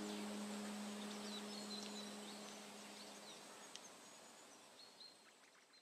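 Outdoor ambience of small birds giving short, high chirps over a steady thin insect whine. The last held note of ambient music dies away about three seconds in, and the whole track fades out.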